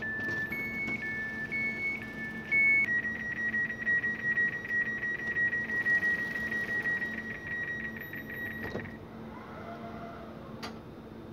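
Door warning signal of a Pesa Elf 2 electric multiple unit: an alternating two-note beep for about three seconds, then a rapid, even beeping on one note for about six seconds, which stops as the door finishes closing. A low steady electrical hum from the standing train runs beneath, and there is a single click near the end.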